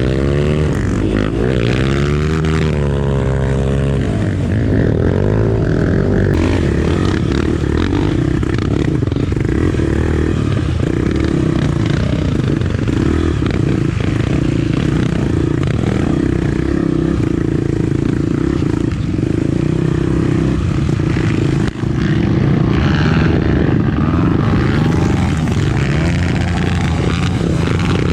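Honda Tornado trail bike's single-cylinder engine, enlarged to 300cc, revving up and down over the first few seconds, then running at a fairly steady pace.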